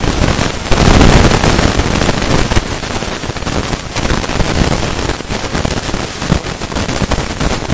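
Fireworks going off in a dense, rapid crackle of bangs, loudest about a second in.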